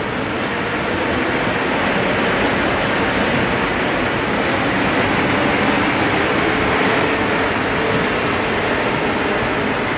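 A KSRTC bus's diesel engine running as the bus drives along, heard from inside the driver's cab together with steady road noise. It grows a little louder over the first couple of seconds, then holds steady.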